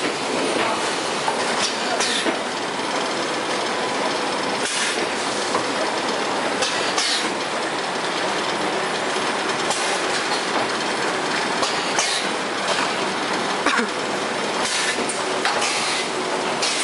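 Automatic carton packaging line running: powered roller and pallet conveyors give a steady mechanical rattle, with frequent sharp clicks and knocks scattered through it.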